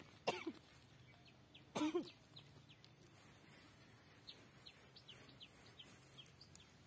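Small bird giving short, high chirps, about two a second. Near the start come two louder, brief sounds that fall in pitch, about a second and a half apart.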